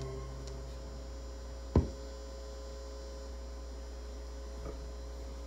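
Low buzzing hum from a record player's bass-boosting preamp, heard once the last note of the music fades. The hum is a side effect of the preamp lifting the low bass frequencies. A single sharp click about two seconds in is the loudest sound.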